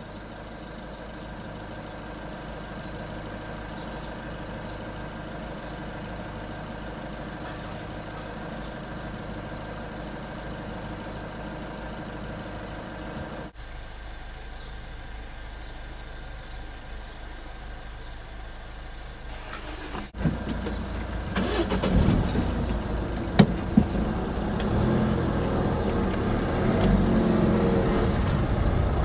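Car engine idling, heard from inside the cabin as a steady low hum. About two-thirds of the way through it gets louder and rougher as the car moves off over the crossing, with a couple of sharp clicks.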